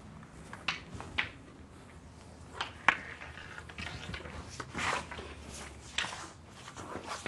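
Short swishes and scuffs from a wooden staff being swung in quick strikes and the feet shifting with it: about eight brief sounds, the sharpest about three seconds in.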